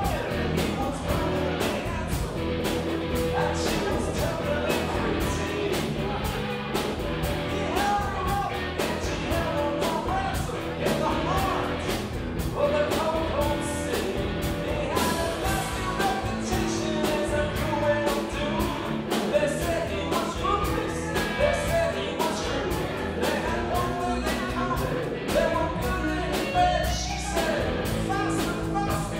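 Live rock band playing a song: a woman singing lead over guitar, keyboards and a drum kit keeping a steady cymbal beat.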